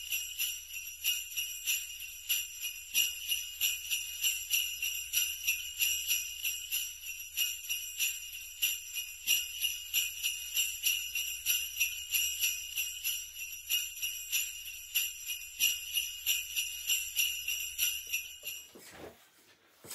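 Jingle bells shaken in a steady, even rhythm over a low hum. Both cut off together near the end.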